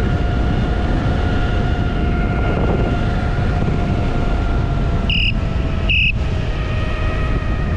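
Electric unicycle running along at speed: a steady whine with rumbling wind on the microphone. About five seconds in, an electronic beeper sounds two short high beeps, less than a second apart, to warn someone ahead.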